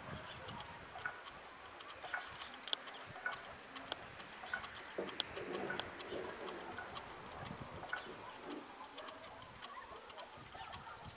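Wind-powered whirligig of metal, wood and 3D-printed plastic clicking and tapping irregularly as its propeller spins and drives the lumberjack figure's axe.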